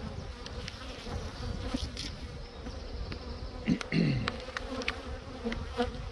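Honeybees buzzing around an open hive in a steady hum. About four seconds in, a louder buzz drops in pitch as a bee flies close past. A few light clicks come from the wooden frame being handled.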